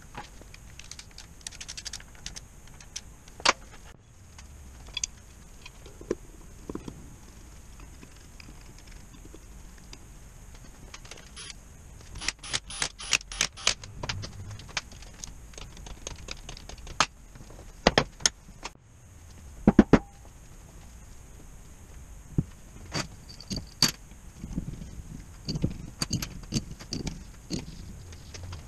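Metal parts and hand tools clinking and knocking during the reassembly of a Midland truck air compressor: scattered sharp clicks and taps, with a quick run of rattling clicks about twelve seconds in and the loudest knocks around eighteen and twenty seconds in.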